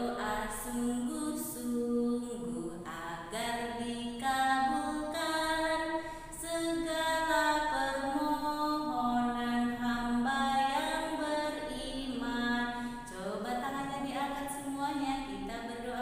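A woman singing a prayer song unaccompanied, in long held notes with short breaks between phrases.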